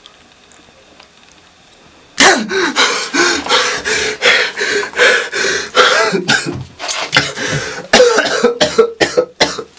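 About two seconds in, a man starts coughing and crying out in loud, broken, wordless bursts, choking as a rope is pulled tight around his neck.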